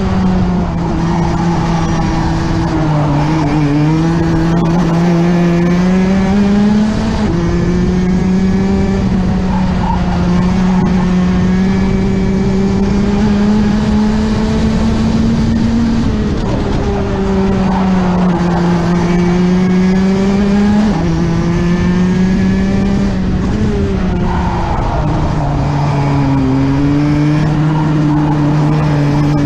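Rotax 125cc two-stroke kart engine heard from on board at racing pace. Its note climbs steadily along the straights and drops sharply as the kart slows for corners, several times over.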